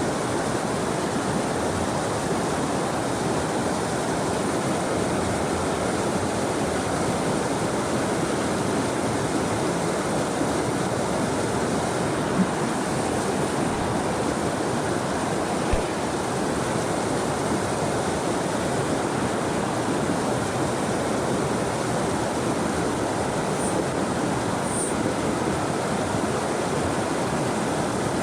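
Mountain creek water rushing steadily, with a couple of brief faint knocks midway through.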